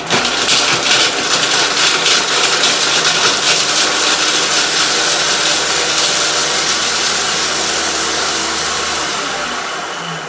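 Monsieur Cuisine Connect food processor grinding chunks of parmesan at maximum speed for ten seconds: a loud, steady whirr, with the hard pieces rattling against the blades for the first couple of seconds. About ten seconds in it stops and the blade spins down with a falling whine.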